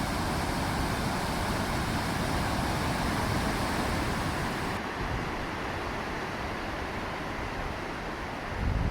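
Steady rushing of the water at Sogi Falls, a wide waterfall, a dense noise with no break; the sound turns duller about five seconds in. Near the end a low buffet, like wind on the microphone, briefly rises over it.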